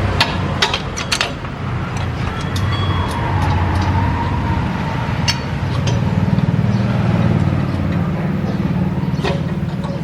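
Steady low motor or engine hum with scattered sharp metallic clicks and knocks from work on the car.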